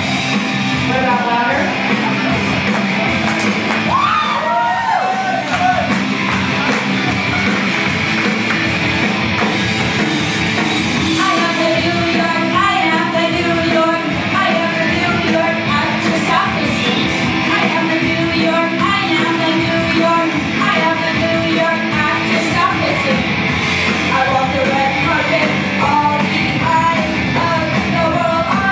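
A woman singing into a hand-held microphone over loud, continuous rock music.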